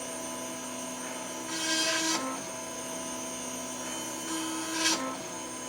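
M40G computerized engraving machine running while it engraves a glass: a steady machine hum with several held tones that shift in pitch, and short hissing bursts about two seconds in and again near the end.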